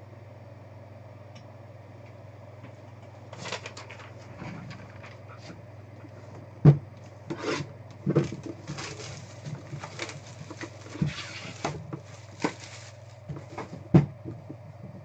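A trading card hobby box being handled on a tabletop: the cardboard box rubs and slides, with scattered knocks. The two loudest knocks come about a third of the way in and near the end. A steady low hum runs underneath.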